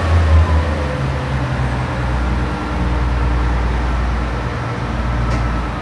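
Interior of a Class 142 Pacer diesel multiple unit: the underfloor diesel engine runs with a steady low rumble, with a faint high whine over it.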